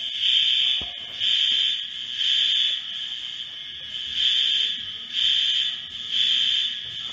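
Building fire alarm sounding in the temporal-three evacuation pattern: three half-second high-pitched beeps a second apart, a pause, then three more. A single faint knock comes about a second in.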